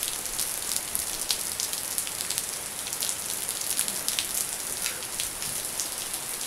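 Heavy rain pouring down steadily, with many separate drops striking close by.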